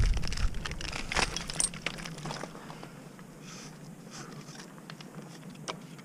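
Wind buffeting the microphone dies away over the first couple of seconds. What remains is faint, scattered clicking and scraping from climbing gear, rope and boots against the tree bark.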